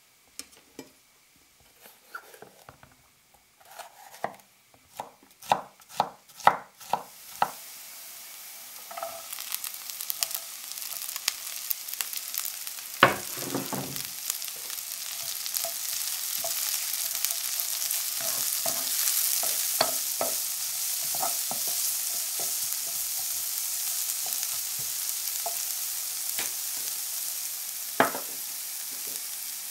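Kitchen knife chopping a red bell pepper on a wooden cutting board: a run of sharp knocks, about two a second. Then diced pepper, carrot and onion sizzle steadily in olive oil in a frying pan while being stirred, with a loud knock about a third of the way in and another near the end.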